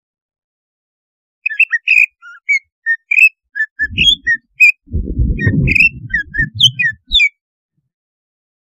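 Greater green leafbird (cucak ijo) singing a quick run of short, high whistled notes. The run starts after about a second and a half of silence and stops well before the end, with a low rumbling noise under its middle part. It is an excited song of the kind keepers play to provoke other cucak ijo into breeding aggression ('birahi').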